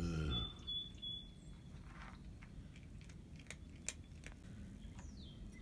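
A cat eating dry cat food, with scattered sharp crunches.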